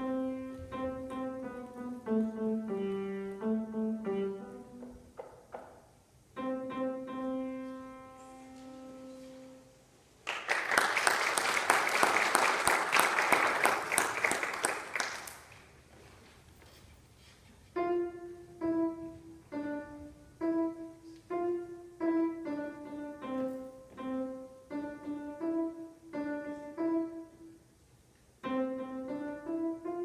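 A grand piano played solo by a child: a few phrases of separate notes, then about ten seconds in a loud, dense stretch of fast repeated notes lasting about five seconds, then short detached notes alternating low and high in a bouncing oom-pah rhythm.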